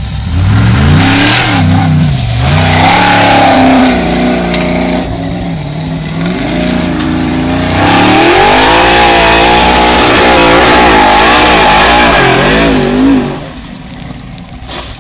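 V8 engine of a Formula Offroad buggy revving hard under full throttle as it climbs a steep sand slope, its pitch swinging up and down again and again. It comes in about half a second in and drops off suddenly near the end.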